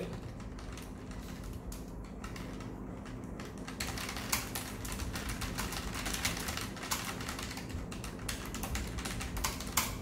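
Fast typing at full strength on a Keychron K1 v4 low-profile mechanical keyboard with Gateron red linear switches: a steady stream of fairly quiet key clicks, growing louder and denser about four seconds in.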